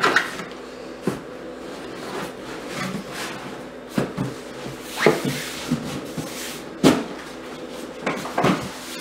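A large doll box being handled and moved: irregular knocks, bumps and scrapes of the box against the table and hands, the strongest about five and seven seconds in.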